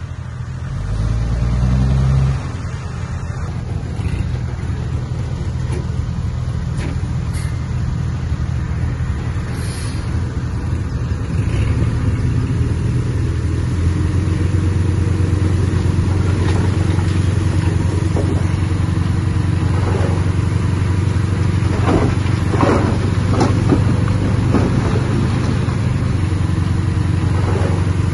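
Heavy diesel engine of earthmoving machinery running under load. It revs up briefly about a second in, then settles to a steady drone, with a run of short metallic clanks about three-quarters of the way through.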